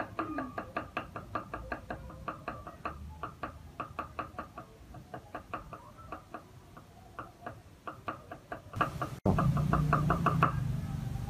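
Cleaver chopping on a wooden chopping board, mincing with quick, even knocks about four a second. About nine seconds in, a steady low hum comes in and the chops sound louder.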